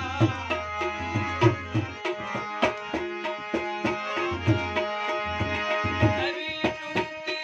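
Tabla playing a steady rhythm with deep bass strokes under sustained harmonium melody notes, an instrumental passage of a Gujarati devotional folk song.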